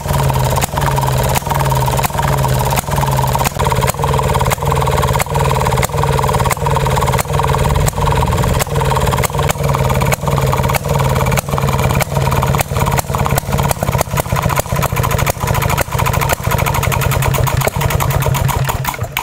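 1929 Maytag Model 92 single-cylinder two-stroke engine running unloaded with a regular popping exhaust beat that speeds up over the run.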